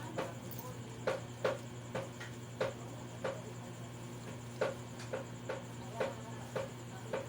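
Irregular series of light knocks and clicks, one to three a second, over a steady low hum.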